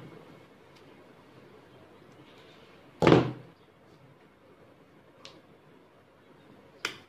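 Craft things handled and set down on a hard tabletop: one solid thump about three seconds in, a faint click about two seconds later, and a sharp knock near the end.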